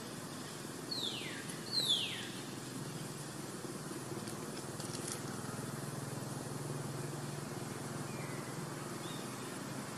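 Two short animal calls, close together about a second in, each sliding steeply down in pitch like a whistle, over a steady low outdoor background noise.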